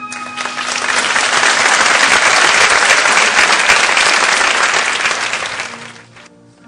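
Theatre audience applauding at the end of a song. The clapping builds over the first second or so, holds, then dies away about six seconds in as quiet music starts again.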